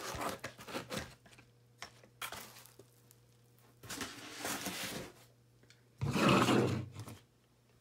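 Packing materials being handled: a white foam insert and plastic wrapping rustle and scrape in four separate bursts, the loudest about six seconds in, over a faint steady hum.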